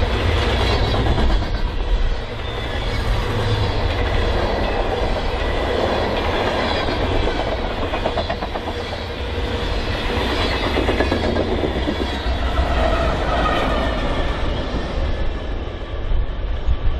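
Covered hopper cars of a BNSF grain train rolling past close by, their steel wheels clacking steadily over the rail joints over a continuous rumble. Near the end the clatter thins out and a lower, duller rumble remains.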